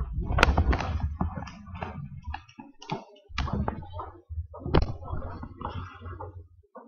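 Handling noise on the recording device's microphone: low rubbing rumble with several sharp taps and clicks, the loudest about half a second in and again near five seconds.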